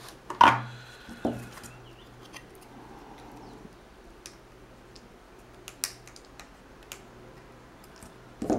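Diagonal cutters snipping the excess leads of soldered components on a circuit board: a string of short, sharp clicks a second or more apart, with a louder knock about half a second in.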